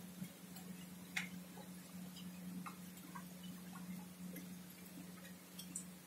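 Faint night-time outdoor ambience: small, irregular clicks and ticks scattered over a steady low hum, with one sharper click about a second in.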